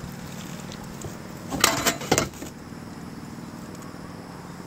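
Fishing rod cast with a spinning reel: a short rushing swish of the rod and line going out, in two quick bursts around the middle.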